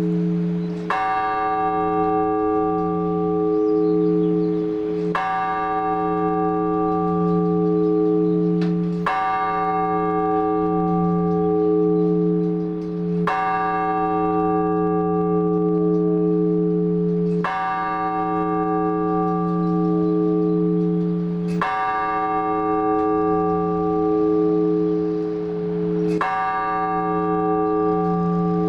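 A large Orthodox church bell struck singly about every four seconds, seven strokes in all, each ringing on over the hum of the one before. It is the measured tolling of one bell known as blagovest.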